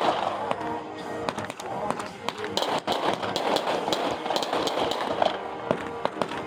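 Fireworks popping and crackling in rapid, irregular succession, with music playing and voices underneath.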